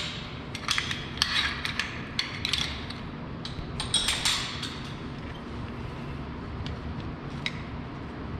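Metal rope-rescue hardware clicking and clinking as carabiners and a pulley are handled while a 3-to-1 haul system is rigged. The clicks come thick in the first half and thin out after.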